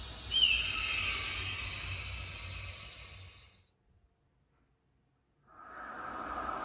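Rivian R1 ambient-lighting theme sounds: an airy shimmering swell with a brief sweeping tone near its start fades out after about three and a half seconds. After a short silence, a second, lower-pitched theme sound starts near the end.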